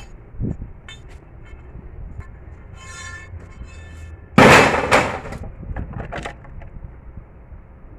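Building materials being handled on a fence build: a few knocks, a short high squeal about three seconds in, then a loud sudden clatter about a second later that dies away over about a second.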